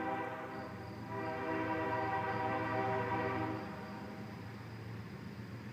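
Approaching CSX freight locomotive sounding its air horn: one blast ends just after the start, and a second, long blast comes in about a second later and stops a little past the middle. A low steady rumble from the train carries on underneath.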